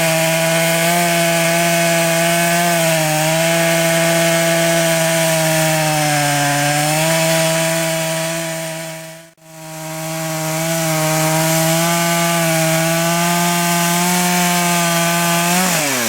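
Chainsaw at full throttle ripping lengthwise through a log in a small chainsaw mill, fitted with ripping chain; the engine note dips several times as the cut loads it. The sound fades out and back in about nine seconds in, and near the end the revs fall away as the throttle is released at the end of the cut.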